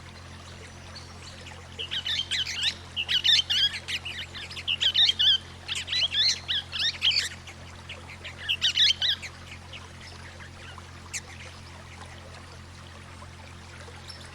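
Swift parrots calling: rapid, high, chattering calls in four or five quick runs over about seven seconds, starting about two seconds in. A steady low hum and a faint trickle of water lie under them.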